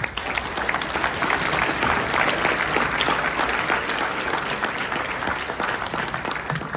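An audience applauding: many hands clapping in a dense patter that starts abruptly, holds steady, then thins out near the end.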